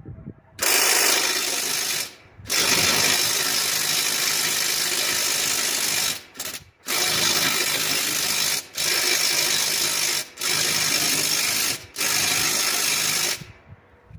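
Handheld power tool run on a stubborn lawn mower bolt in six repeated bursts, each one to three and a half seconds long, with short pauses between them. The bolt will not come loose.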